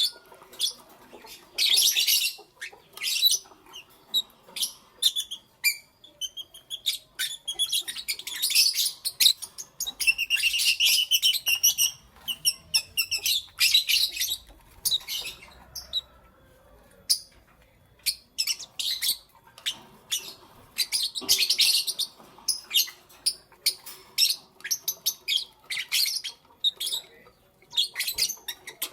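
Lovebirds chirping: rapid, shrill, high-pitched chirps and squawks in busy clusters with short pauses between them.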